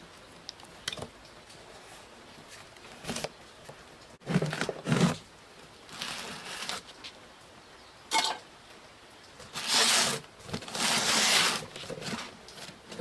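Intermittent rustling, scraping and light knocks from computer parts being handled, in several short bursts of a second or less from about four seconds in.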